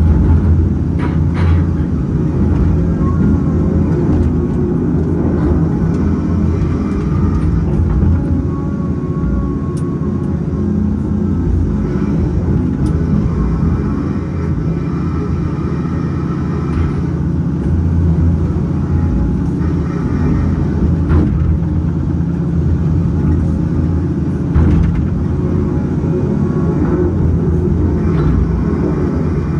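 Cat 568 log loader's diesel engine running steadily under hydraulic load, with a few sharp knocks as logs are dropped onto the truck's bunks.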